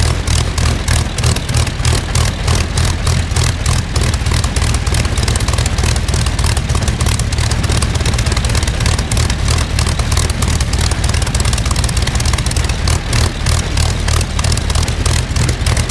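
Rolls-Royce Griffon 58 V12 aero engine running steadily on a trailer test stand, its propeller turning, with a deep hum and a fast, even beat of exhaust pulses.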